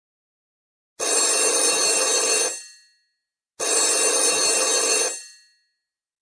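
Old French telephone's bell ringing twice, each ring about a second and a half long with a short fade, the second following about a second after the first: a double-ring cadence.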